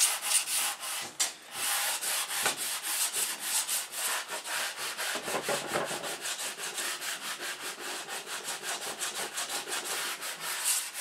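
Sandpaper wrapped round a small wooden block, rubbed back and forth by hand along a flat groove in a carved walnut case. The scraping strokes are quick and even, about three or four a second, with a short break about a second in.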